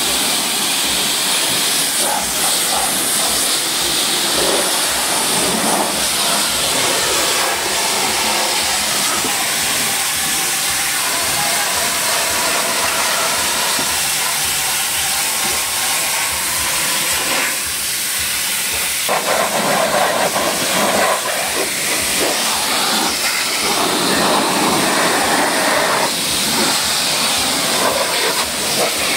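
Pressure washer jet spraying water onto a car's bodywork, wheel and door jamb: a loud, steady hiss of spray with splashing. It grows louder for several seconds past the middle as the jet works close in.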